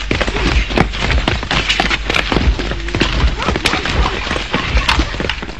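A busy jumble of raised voices and many sharp knocks and thuds, easing off near the end.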